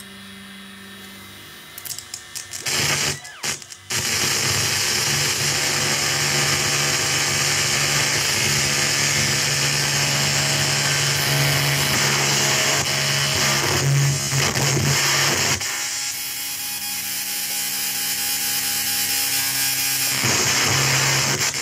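Harsh electronic noise from a circuit-bent VHS video recorder: a few crackling pops, then a loud, dense hiss over a steady low hum that comes in about four seconds in. The noise changes in texture as bare wires are held against the recorder's circuit board.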